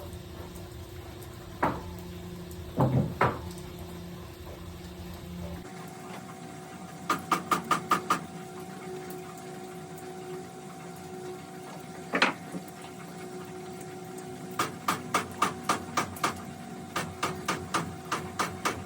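Sharp metallic clicks and knocks from a hand tool working a stiff, seized ball-valve handle. They come singly and in quick runs of about five or six a second, over a steady hum.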